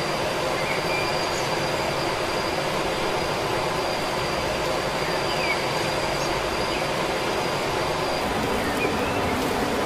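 Steady outdoor rushing noise with a thin high whine running through it, and a few brief chirps about a second in, midway and near the end.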